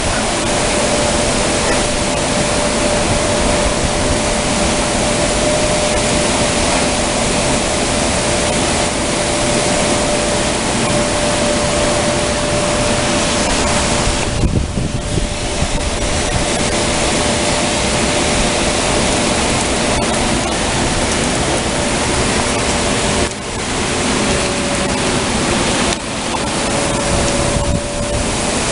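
Heavy rain pouring down in a strong, gusting wind, a dense steady hiss that briefly eases a few times. A faint steady hum runs underneath.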